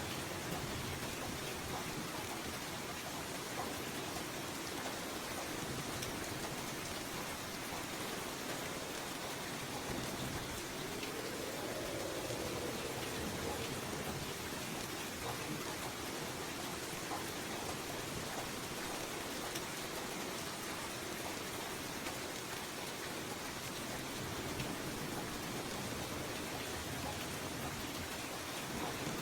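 Steady light rain falling, an even, unbroken hiss of drops.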